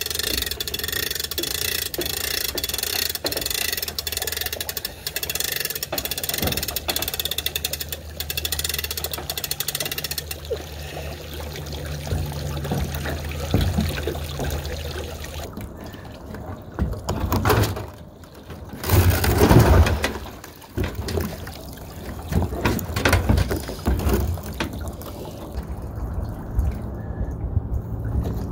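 Lake water sloshing and splashing around a submerged boat lift and its floats as someone moves about in it, coming in uneven loud bursts in the second half after a steady noisy first stretch.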